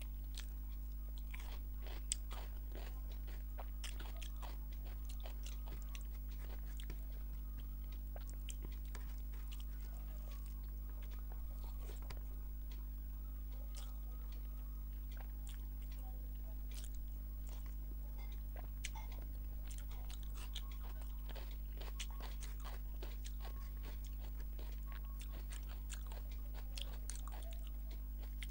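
Close-miked eating of rice and fish curry by hand: irregular wet clicks, smacks and occasional crunches of chewing, with fingers mixing rice on the plate. A steady low electrical hum runs underneath.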